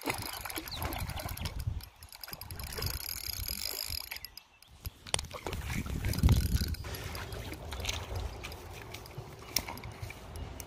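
German wirehaired pointer wading and splashing through shallow river water, reaching a hooked carp at the water's edge.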